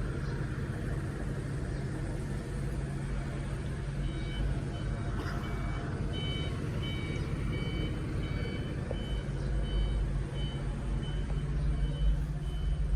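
LTMG WZ45-16 backhoe loader's engine running steadily while its reversing alarm beeps, a regular high beep about one and a half times a second, starting a few seconds in and stopping near the end. The engine gets louder near the end.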